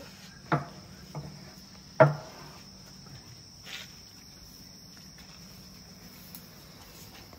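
Crickets chirring steadily, with a few sharp knocks from an elephant calf mouthing and bumping a metal stable gate, the loudest about two seconds in.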